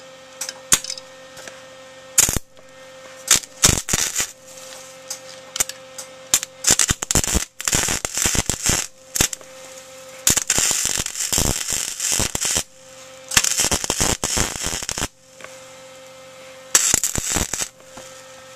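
Wire-feed welder arc crackling in several irregular runs of a second or two each, with a steady hum in the pauses between them, as weld is laid inside a broken stud to free it.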